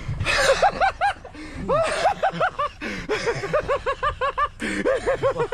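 Men laughing heartily in several runs of quick, repeated ha-ha-ha sounds, with short pauses between the runs.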